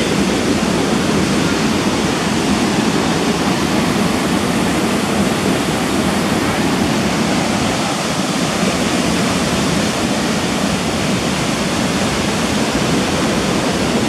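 Haew Narok Waterfall, a tall falls of about 60 metres, pouring into its pool below: a loud, steady, unbroken rush of falling water.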